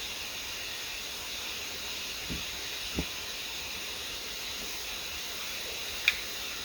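Steady hiss of a quiet room and the recorder's noise, broken by two faint knocks about two and three seconds in and a short click near the end.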